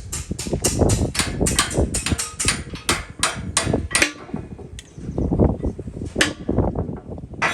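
Hammer striking metal in a quick run of sharp blows, about four a second, that stops about four seconds in; a few single blows follow.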